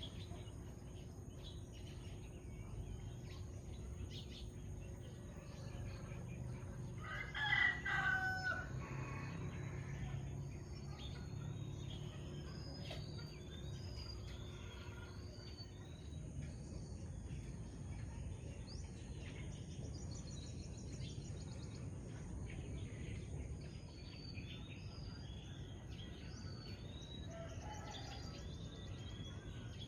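A rooster crows once, about seven seconds in, over many short, high bird chirps repeating throughout and a steady low rumble.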